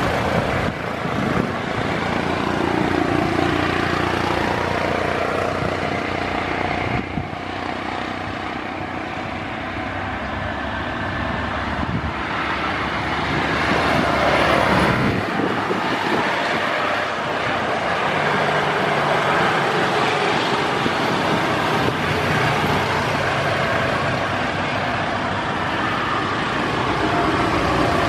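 Distant jet engine noise from a Boeing 787-8 Dreamliner rolling along the runway after landing: a steady rush that swells a little about halfway through.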